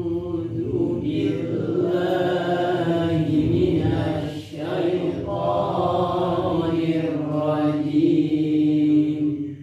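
A man's voice chanting Arabic in a melodic, Qur'an-recitation style, holding long drawn-out notes, with a short break about four and a half seconds in.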